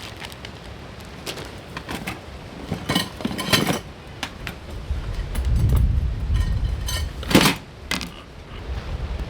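Clinks and rattles of camp kitchen things being handled, a few sharp knocks among them, the loudest a little after seven seconds in. Midway, gusts of wind buffet the microphone as a low rumble.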